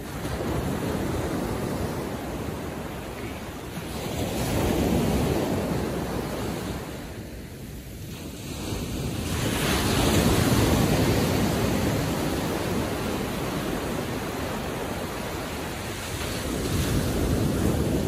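Ocean waves breaking and washing up the beach. The surf swells and fades several times and is loudest about ten seconds in.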